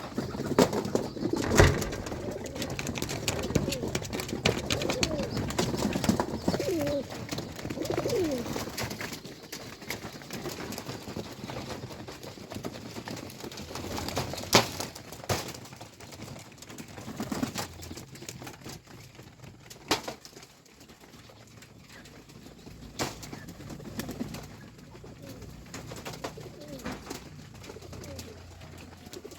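Pigeons cooing in low, gliding calls, thickest in the first third and sparser after, with a few sharp knocks, the loudest near the start and about halfway.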